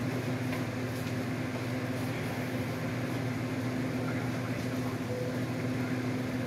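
A steady electrical machine hum runs throughout, with a few faint light ticks in the first couple of seconds as a cord and cardboard are handled.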